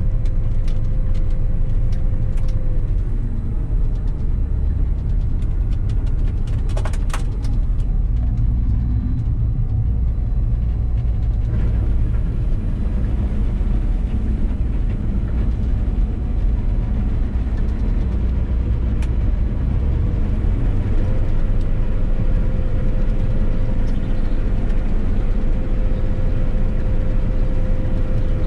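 Claas Lexion 670 combine harvester running: a steady low engine rumble with a steady whine on top at the start and again through the second half. A few sharp clicks come about seven seconds in.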